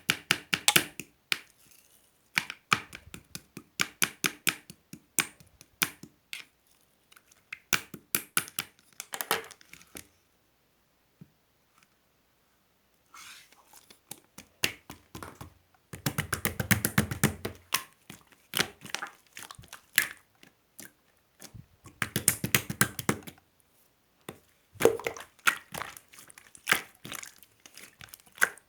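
Silver slime being squished and pressed by hand, making runs of sharp clicks and pops, with a pause of about three seconds partway through and denser crackling stretches after it.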